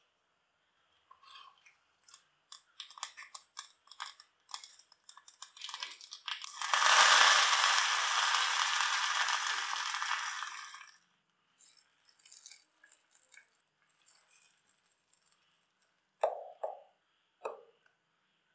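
Mustard seeds crackling and popping in hot oil, then a loud sizzle lasting about four seconds as curry leaves hit the hot oil, fading to scattered pops. A few short knocks near the end.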